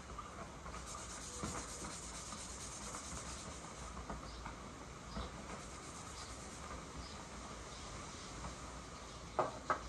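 Faint, steady scrubbing of a small metal gun part with a Scotch-Brite abrasive pad. Two light knocks come near the end.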